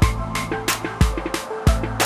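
Background music with a steady beat: a deep thump about once a second, sharp hits in between, and a bass line under short melody notes.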